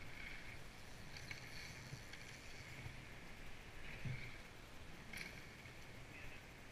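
Mountain bike rolling down a dirt trail: a faint steady hiss of tyres and rushing air, with a few sharp clicks and rattles from the bike over bumps.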